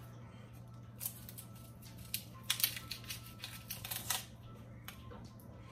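Small kitchen knife peeling and trimming an onion held in the hand: a string of short, crisp scrapes and clicks as the blade cuts through the dry skin, over a steady low hum.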